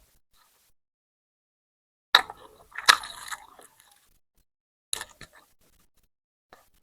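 Close-miked mukbang eating sounds: a loud burst of wet chewing and lip-smacking about two seconds in, a few more smacks about five seconds in, with quiet gaps between.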